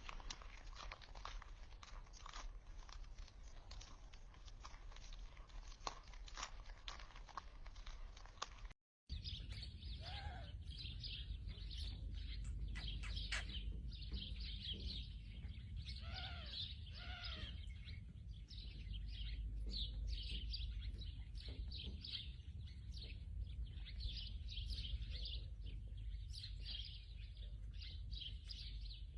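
Faint scattered clicks, then after a cut about nine seconds in, birds chirping and tweeting with many quick high calls and a few short sliding notes.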